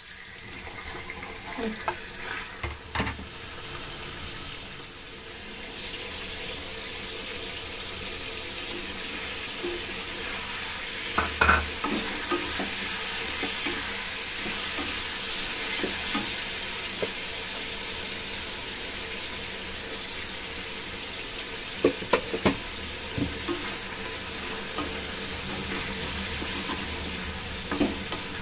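Chicken pieces frying in oil in a steel wok: a steady sizzle that builds over the first few seconds. A spatula stirs and scrapes the pieces, with a few sharp knocks against the wok, the loudest at about 11 and 22 seconds in.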